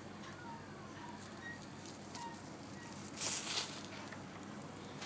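A brief crunching rustle in dry leaf litter and gravel about three seconds in, over a quiet outdoor background with a few faint short chirps.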